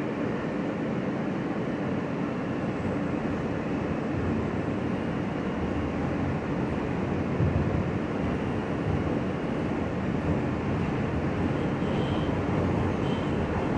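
Inside an R160 subway car as it pulls out of a station and runs along the track: a steady rumble and rush of wheels and motors.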